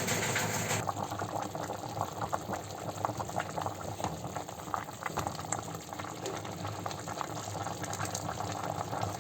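A pot of chicken potage with plantain and potato bubbling on the heat, with dense small pops and gurgles, and a hiss in the first second that stops abruptly.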